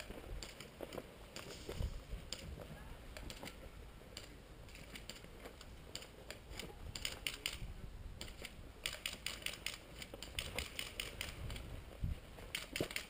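Runs of sharp clicks, several a second, coming in bursts about six seconds in, around nine seconds and near the end: airsoft guns firing rapidly. A few low thuds sound in between.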